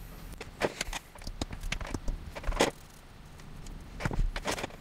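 Irregular light clicks and knocks of small plastic and metal laptop parts being handled on a wooden tabletop, with a sharper knock a little past halfway and a quick cluster near the end.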